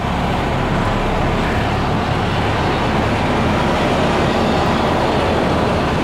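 Dongfeng B180 truck's diesel engine running steadily as the truck reverses.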